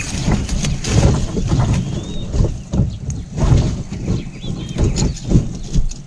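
Wind buffeting the microphone: a loud, uneven low rumble that swells and drops, with a few faint, short high bird chirps.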